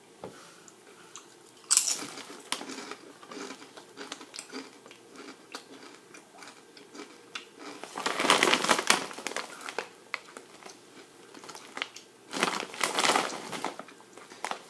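A crunchy bite into a kettle-cooked potato chip about two seconds in, followed by crisp chewing crunches. Around eight and thirteen seconds in come two longer stretches of crinkling, as the chip bag is handled.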